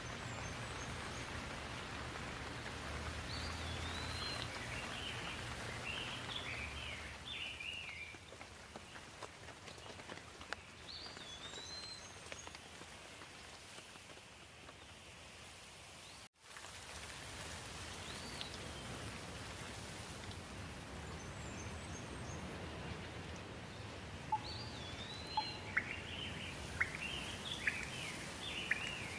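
Steady rain hissing, with birds calling in short bursts of chirps at intervals throughout. The sound cuts out completely for a split second about halfway through, and a few sharp ticks come near the end.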